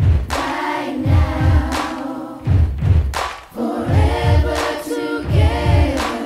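A youth choir sings in unison over backing music with a steady, repeating beat.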